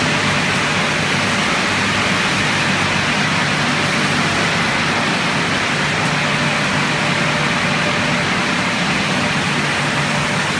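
PE wood-plastic granulating extrusion line running: a steady mechanical noise with a low hum underneath.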